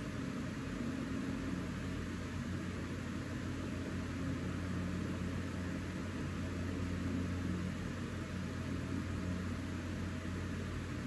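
Steady background noise: a low hum with an even hiss over it, unchanging throughout.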